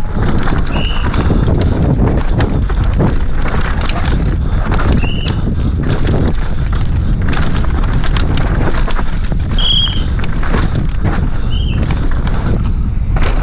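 Downhill mountain bike ridden fast down a rough dirt trail: wind rushing over the camera's microphone, with constant rattling and clattering of the bike over bumps and four short high squeaks.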